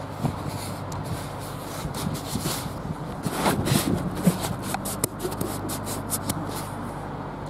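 Handling noise from the recording phone: a run of scratchy rubbing and scraping as it is covered or moved against fabric, over a low steady hum.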